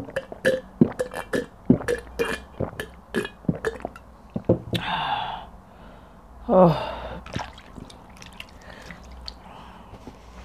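A person gulping water from a glass, a quick run of swallows for about four seconds, then a breathy exhale and, about six and a half seconds in, a loud burp that falls in pitch.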